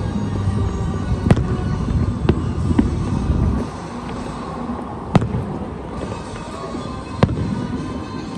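Aerial firework shells bursting at a distance: about five sharp booms, the loudest one about five seconds in, over a steady low rumble that thins out about halfway through.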